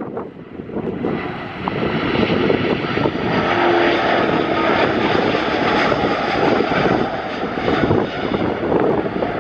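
Airbus A350 jet engines (Rolls-Royce Trent XWB turbofans) at takeoff thrust as the airliner rolls past on its takeoff run. The jet noise swells about a second in and then stays loud and steady, with a faint whine in it.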